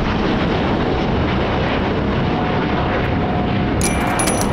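Jet airliner engine noise, a loud, steady rush, with wind on the microphone. A short burst of high clicking with a thin ringing tone comes near the end.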